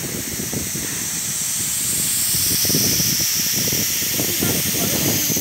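A steady high hiss, as of gas escaping under pressure, that grows louder about two seconds in, over a busy low clatter of knocks.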